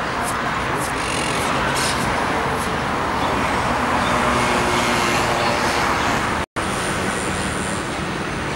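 Steady city street noise with road traffic going by, cut off completely for a split second about two-thirds of the way through.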